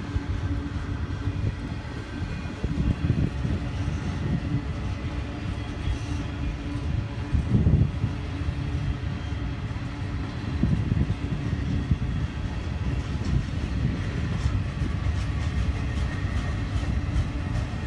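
Double-stack container train's well cars rolling past: a steady low rumble and clatter of steel wheels on the rails, with one louder knock about eight seconds in.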